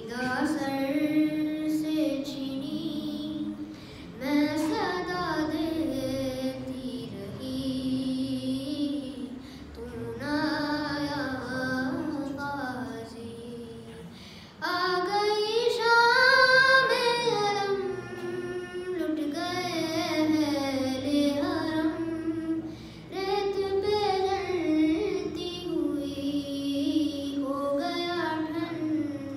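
A boy singing solo and unaccompanied: long melodic phrases of held, wavering notes separated by short breaths, with a louder, higher phrase about halfway through.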